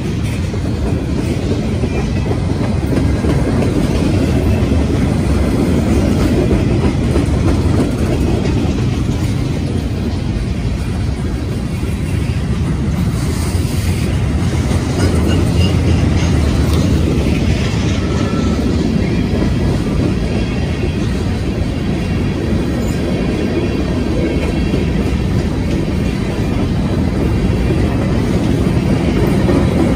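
Freight train cars (tank cars and covered hoppers) rolling past close by: a steady, loud, low rumble of steel wheels on rail.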